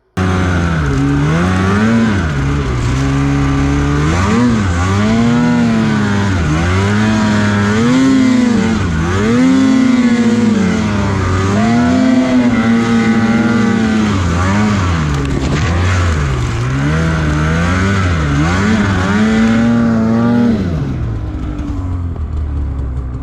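Snowmobile engine revving up and down over and over as the throttle is worked on and off, then settling to a lower, steadier run near the end.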